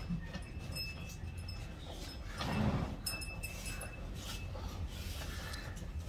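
Hand-milking a Gir cow: rhythmic squirts of milk striking a steel bucket. A louder low sound comes about two and a half seconds in.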